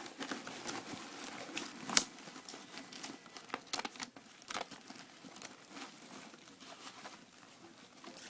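Firework packaging crinkling and rustling as a package is worked loose and pulled out of a pile, with scattered clicks and a sharp knock about two seconds in.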